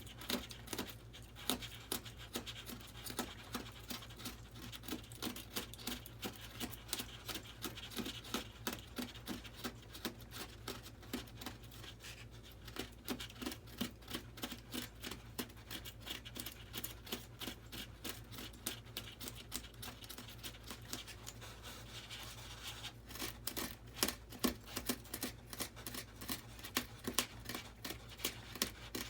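Sandpaper rubbed back and forth by hand on the foam and glue of a model jet's nozzle: a long run of short, scratchy strokes, a few each second, getting louder near the end.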